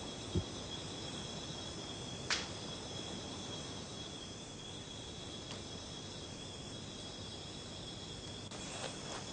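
Steady chorus of crickets, a continuous high trilling, with a short low thud about half a second in and a sharp click a little after two seconds.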